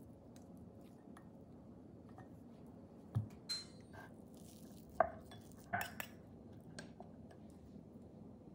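Metal fork mashing roasted purple sweet potato in a glass bowl, clinking against the glass about five or six times in the second half.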